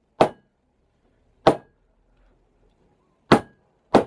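A bottle banged against a desk: four sharp knocks at uneven intervals, two close together near the end.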